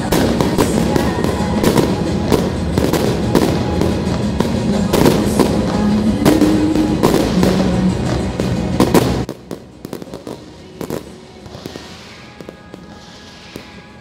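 Fireworks display bursting with rapid bangs and crackles over music. About nine seconds in the music and most of the noise cut off suddenly, leaving scattered pops and a hissing crackle.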